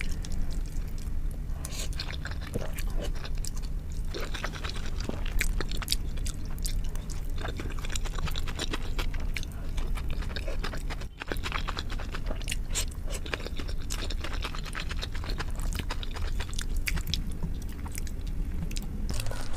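Close-miked eating: chewing and wet mouth clicks as noodles and steamed momo dumplings are eaten, over a low steady hum.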